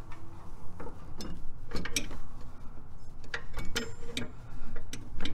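Irregular metallic clicks and clinks from a lawn tractor's PTO electric clutch being turned by hand against the engine shaft, as its lower piece is spun to line its notch up with the anti-rotation bracket.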